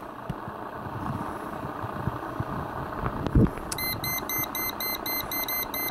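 Pen-type non-contact voltage detector beeping rapidly and evenly, about four beeps a second, starting a little past halfway: it is sensing 117-volt mains on the screwdriver in the outlet's hot slot. A light thump just before the beeping starts, over a steady background hiss.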